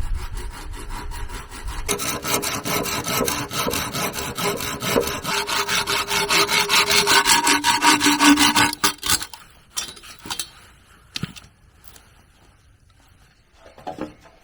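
Hand saw cutting with rapid back-and-forth strokes, which stop about nine seconds in, followed by a few light knocks.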